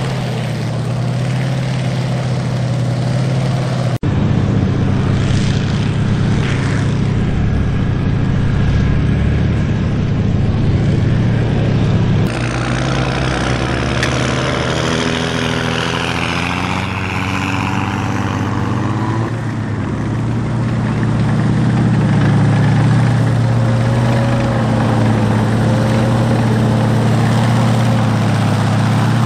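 M4A1 Sherman tank driving over soft ground, its Continental R975 nine-cylinder radial engine running with a steady deep drone over the sound of its tracks. For several seconds midway a higher whine wavers up and down over the engine.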